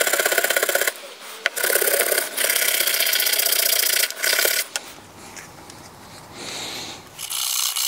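Hand wire brush scrubbing a van's metal load point in rapid strokes, to clear caked-on bed liner and dirt. It comes in several bursts with short breaks, and goes quieter for a couple of seconds past the middle before a last burst near the end.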